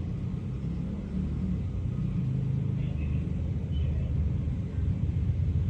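A steady low rumble with no speech, with two faint brief high sounds around the middle.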